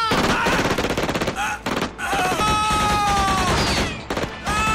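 Film gunfire: a rapid, dense volley of shots. From about two seconds in, a long, high, held tone that falls slightly sounds over the continuing shots.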